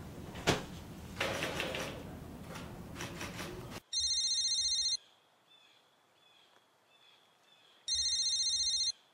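Mobile phone ringing twice with an electronic trilling ringtone, each ring about a second long and about three seconds apart, with faint birdsong between the rings. Before the rings come rustling and a sharp knock as a folder is handled.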